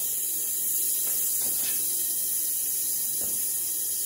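Steady hiss of a fluid extractor's suction drawing power steering fluid out of the reservoir through a thin tube, with a few faint light ticks.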